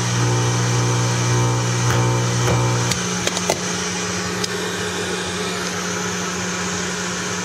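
Mains hum and hiss from a homemade CB-band crystal radio set: a steady buzzing hum of stacked low tones over static. About three seconds in the strongest hum tones drop away, with a few short clicks.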